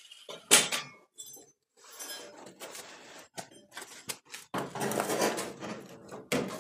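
A loose steel quarter panel cut from a 1957 Chevrolet being lifted and moved by hand: a sharp metal clank about half a second in, then scattered knocks and a stretch of rattling sheet metal.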